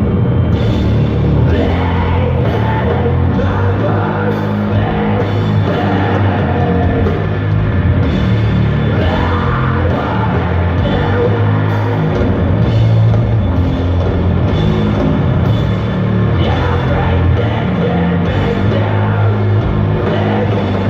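Live doom metal band playing loud: heavy distorted guitars, bass and drums, with a singer's vocals over them.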